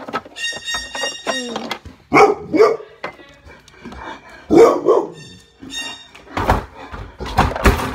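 A dog whining high at first, then barking and yelping several times, with two heavy thumps near the end.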